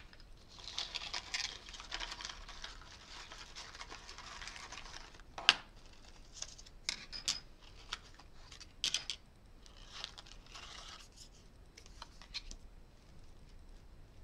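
Organza bag and plastic packets rustling and crinkling as small diamond-painting tools are pulled out, with sharp clicks and taps as small plastic items are set down on a wooden table; the loudest click comes about five and a half seconds in.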